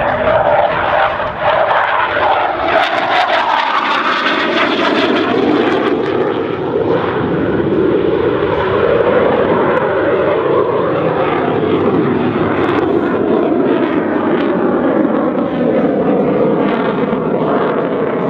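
A BAE Hawk 127 jet trainer's Adour turbofan running loud in a display flight. The pitch falls as it passes in the first few seconds, then a steady jet rush with slowly sweeping tones.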